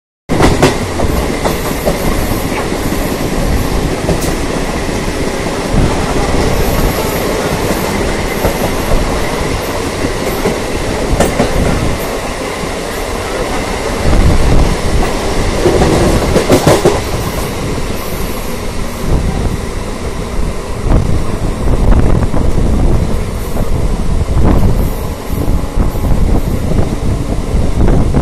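Running noise of an electric suburban local train (EMU) heard from its open doorway, with a second local train running close alongside: wheels rumbling and clattering on the track. A faint steady squeal sits over it in the first several seconds, and the noise grows louder about halfway through.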